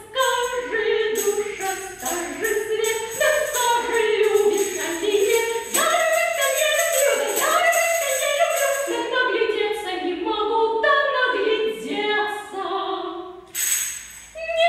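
A woman singing a Russian folk song with upright piano accompaniment. Through much of the phrase a high jingling is shaken along in rhythm.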